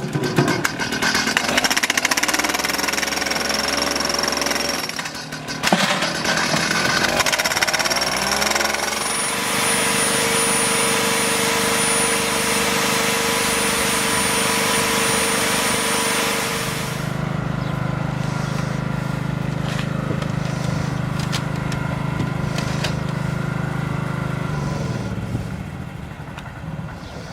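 A motor-driven machine running with a steady hum and a rough rattle. Its tone shifts about nine seconds in and again around seventeen seconds, then it winds down near the end.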